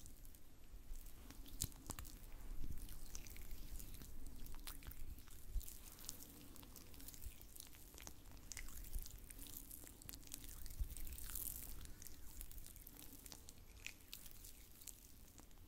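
Close-miked soft, wet clicks and squishes of oiled hands massaging skin, scattered irregularly throughout.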